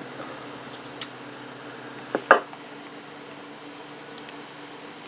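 Steady low hum with a few faint ticks, and a sharp double click or knock a little over two seconds in.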